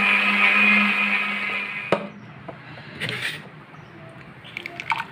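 KW-2088 multifunction countertop blender running as it blends a banana shake, then switched off with a click about two seconds in. Near the end the shake is poured into a glass, with a few light clinks.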